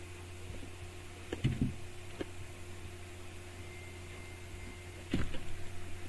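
A steady low electrical hum with a few soft knocks and clicks, the loudest about five seconds in.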